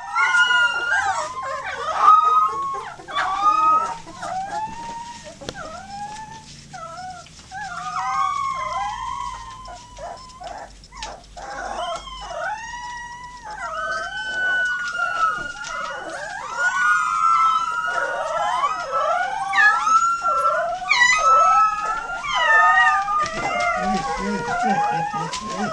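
A litter of 18-day-old Golden Retriever puppies howling together: many high, wavering howls and whimpers overlapping throughout, set off by a passing fire-truck siren.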